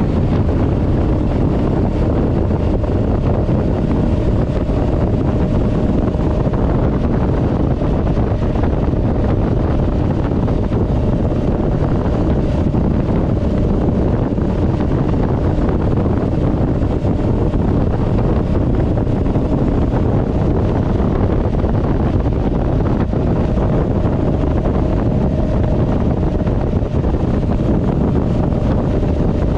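Steady wind noise on the microphone from riding a Honda Rebel 500 motorcycle at road speed, with a faint steady tone beneath it.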